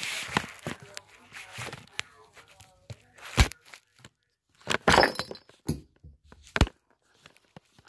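Handling noise from a phone held close to its microphone: rubbing and rustling, then a scatter of sharp knocks and taps, the loudest about three and a half seconds in and around five seconds in.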